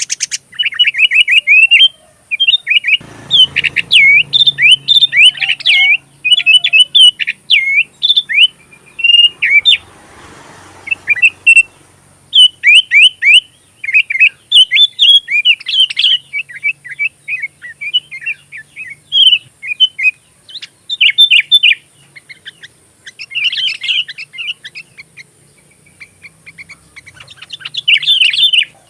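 Sooty-headed bulbul (kutilang) singing a fast, continuous run of chirps and whistled phrases, a bulbul song trained with oriental magpie-robin (kacer) phrases worked in as filler. A faint steady high whine lies underneath.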